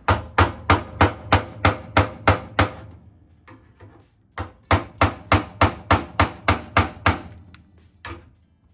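Hammer striking a steel truck fender in dent-removal work. There are two runs of about nine quick blows, roughly three a second, with a pause between them and one last blow near the end.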